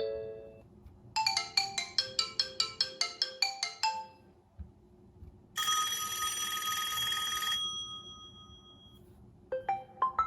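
OnePlus 6T stock ringtones and notification sounds playing one after another. First comes a quick run of bright electronic notes, then a shimmering chime that rings out and fades, and near the end another plucked melody begins.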